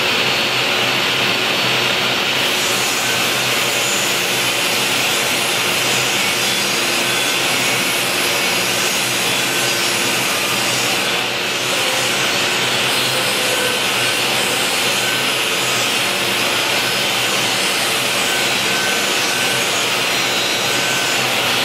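Table saw running and ripping a thin plywood panel: a loud, steady noise from the blade cutting through the sheet that holds unbroken from start to finish.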